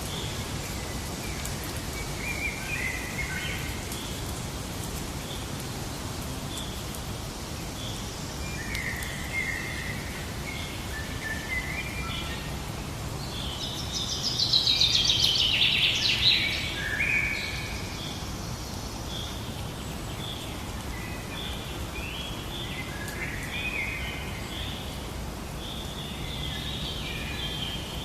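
Birds singing and chirping in short scattered phrases over a steady low background rumble, with a louder, denser burst of song about halfway through.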